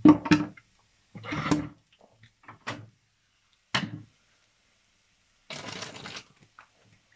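Kitchen clatter as a frying pan is lifted off a gas stove's metal grate: several separate knocks and clanks of pan and utensils, the loudest right at the start, then a short hiss about five and a half seconds in.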